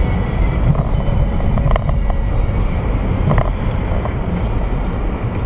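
Steady low rumble of a moving car's engine and road noise, as picked up by a dashcam, with two brief faint higher sounds about two and three and a half seconds in.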